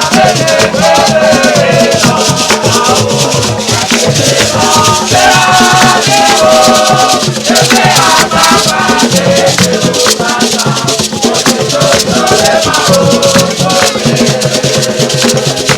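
Jama music: voices singing a chanted melody over a fast, steady rattle of shakers and other percussion.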